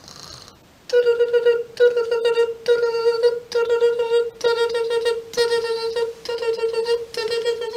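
Mouth-made, horn-like tone sounded about nine times in a row at one steady pitch, each note lasting under a second, starting about a second in.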